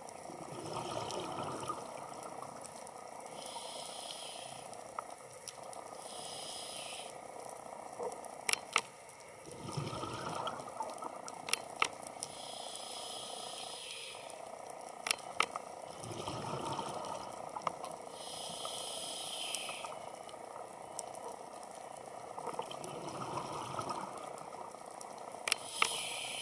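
A scuba diver breathing through a regulator underwater: a hiss on each inhale alternating with a bubbly rumble of exhaled air, about every seven seconds. Several sharp clicks, mostly in pairs, cut in between.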